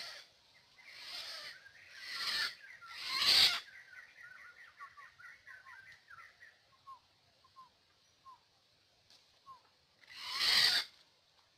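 Several short bursts of rustling or flapping, the loudest about three seconds in and another near the end. Between them a bird gives a quick run of short, falling chirps, several a second, that thins to a few scattered chirps.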